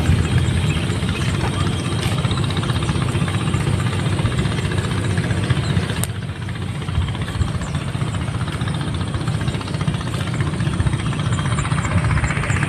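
A small engine running steadily, a continuous low rumble with a fast knocking pulse.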